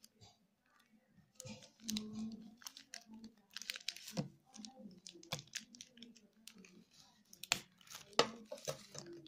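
A knife cutting and tearing open a mailing packet: irregular crinkling and rustling of the wrapping, with a few sharp clicks.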